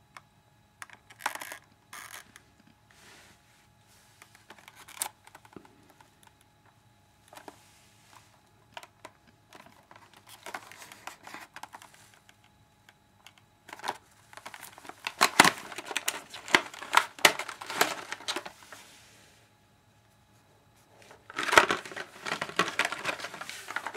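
Cardboard box and paper packaging being handled and opened by hand: scattered taps and rustles at first, then a busier stretch of crinkling and rustling from a little past the middle, and another short burst of it near the end.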